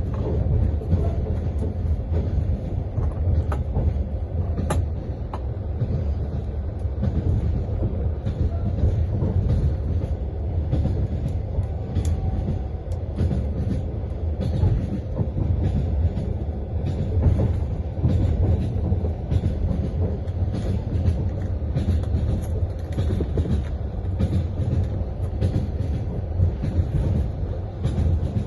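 Passenger train running, heard from inside a carriage: a steady low rumble with the clatter of wheels over the rail joints.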